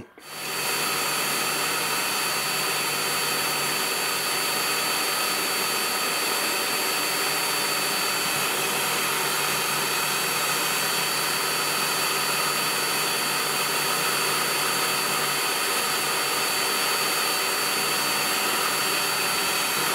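Electric drill in a drill stand running steadily, its twist bit drilling 2 mm holes through balsa for hinge-retaining pegs; a steady motor noise with a thin high whine over it, starting abruptly just after the start.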